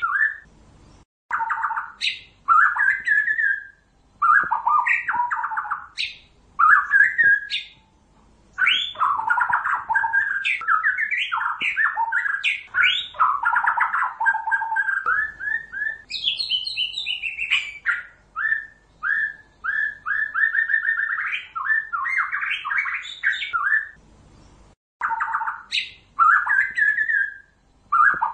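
White-rumped shama singing: a loud, varied song of rapid repeated notes and quick rising and falling whistles, delivered in phrases of a few seconds with brief pauses between them.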